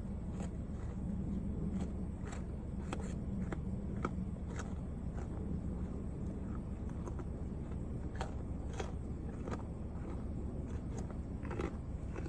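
A deer chewing carrots: crisp crunches about twice a second, over a steady low hum.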